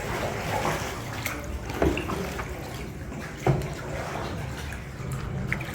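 Water splashing and lapping around a kayak inside a small cave, with a couple of sharper splashes or knocks about two and three and a half seconds in.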